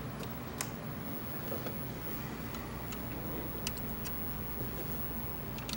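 A few sharp, light clicks and taps from hands handling cables and connectors on an open CMD HD40 drive case, over a steady low hum.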